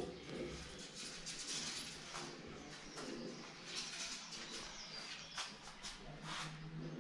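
Birds calling: scattered high chirps, with the low cooing of a pigeon or dove.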